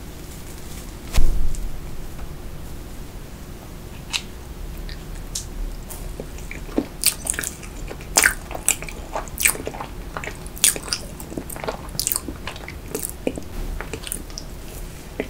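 Close-miked eating of soft rainbow layer sponge cake with cream frosting: wet biting, smacking and chewing clicks, dense through the second half. A single loud knock comes about a second in.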